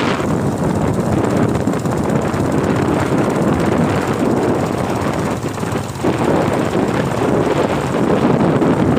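Wind rushing over a phone's microphone on a moving motorcycle, with the motorcycle's running and road noise underneath. It eases briefly about five and a half seconds in.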